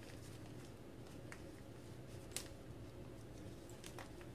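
Hands handling the fabric seat pad of a baby swing, fastening its Velcro flaps and snaps: a few short, faint clicks, the sharpest near the end, over a quiet background.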